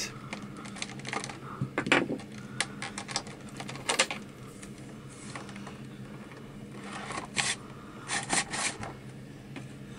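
Plastic clicks and scrapes as an external 12-volt power supply block is worked loose and slid off the side of a 1980s Hitachi portable VHS recorder's plastic case. The sharpest clicks come in a cluster about seven to nine seconds in, over a faint low hum.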